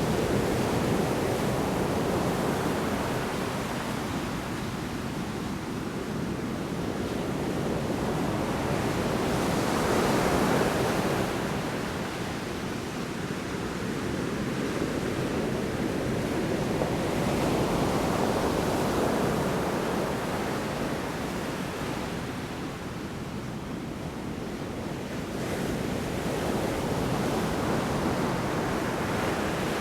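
Large storm waves breaking on the shore: continuous surf noise that swells louder every eight seconds or so as each wave comes in.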